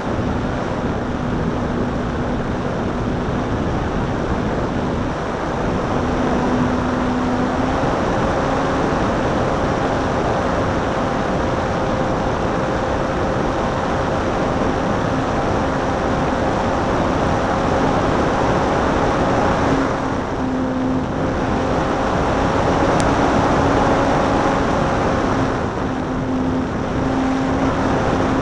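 Parkzone P-51 RC plane in flight, heard from its wing tip: heavy wind rush over the microphone with the electric motor and propeller humming steadily underneath. The pitch shifts up and down a little with throttle.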